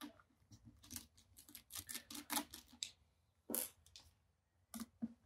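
Faint, irregular small clicks and scrapes of a cross-head screwdriver working the small screws that hold a laptop's battery in place.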